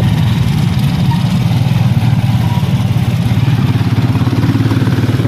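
Motorcycle engine of a passenger tricycle running steadily under way, heard from inside the covered sidecar.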